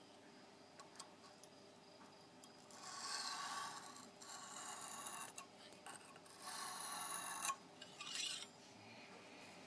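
Faint rubbing strokes of a Lansky sharpening hone drawn across a knife blade's edge, in about four separate passes: checking the bevel angle against the blackout-pen ink.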